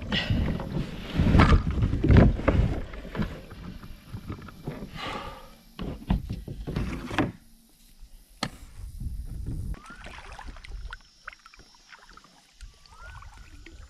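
Knocks, thumps and rustling on a yellow plastic sit-on-top kayak's hull and seat as a person shifts about in it, with low rumble on the microphone. About halfway through it goes much quieter, with a sharp click and a couple of short rising whistles near the end.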